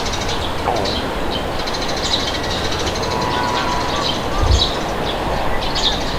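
Steady wind with a low rumble and birds chirping in short high calls every second or so. A brief low thump comes about four and a half seconds in.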